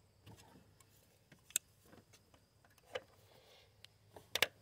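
A few sharp clicks and taps of metal and plastic parts being handled in a minivan's engine bay, the loudest a quick double click near the end.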